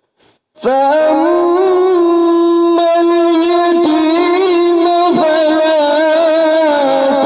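A man's voice reciting the Quran in a melodic, drawn-out chant (tilawat), starting about half a second in with a long, held, ornamented line whose pitch wavers up and down.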